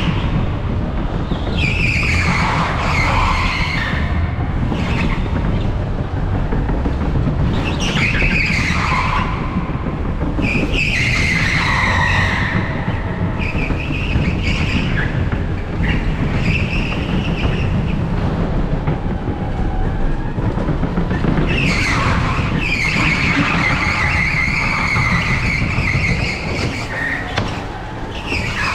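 Onboard an electric go-kart at speed: a steady low rumble from the kart and track, with the tyres squealing in several bursts through the corners. The longest squeal comes in the last third.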